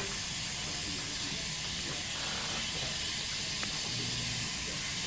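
Dental suction tip held in a patient's mouth, hissing steadily, with a small click about three and a half seconds in.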